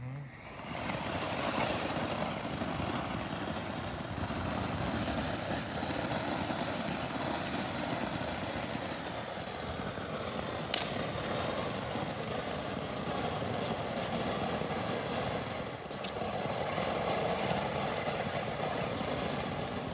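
Silver snow firework fountain burning: a steady hiss of spraying sparks that catches about half a second in. There is one sharp pop about halfway through, and the hiss cuts off abruptly near the end.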